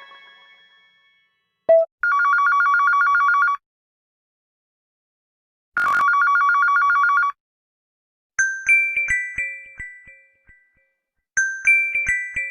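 Huawei Nova 5T built-in phone ringtones playing one after another. A mallet melody fades out, then a classic telephone-style trilling ring sounds twice, each ring about a second and a half long with a pause between. Then a short bright chime phrase with high tinkles plays twice.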